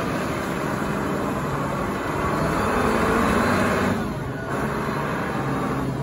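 Large Caterpillar forklift's engine running steadily as the machine drives and turns, easing off slightly about four seconds in.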